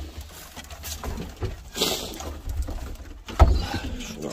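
Domestic pigeons cooing low in a loft, with a short rustle about two seconds in and one sharp knock near the end.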